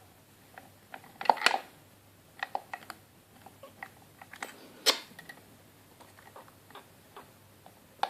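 Small, irregular clicks and ticks of a hook pick and tension wrench working the pins inside a Master Lock Pro Series padlock under light tension, with a cluster of louder clicks about a second and a half in and a single sharp one about five seconds in.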